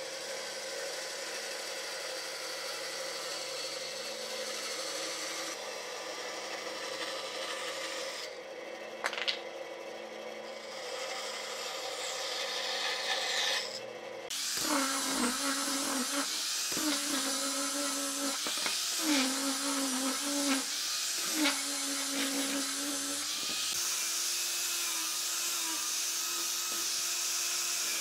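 Bandsaw cutting a thick softwood block along a curved line, its motor note steady at first, then dipping and recovering several times in the second half as the blade loads in the cut. In the last few seconds an angle grinder with a sanding disc runs steadily against the wood.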